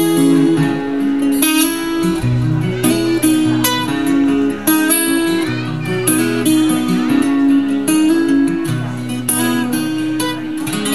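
Acoustic guitar playing an instrumental passage without vocals: quick picked notes and chords over a changing bass line.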